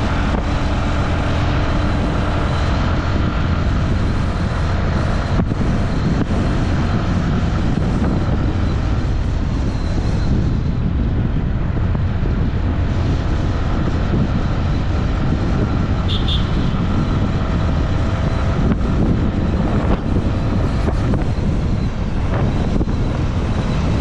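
Steady engine and road noise of a moving vehicle, with wind rumbling on the microphone.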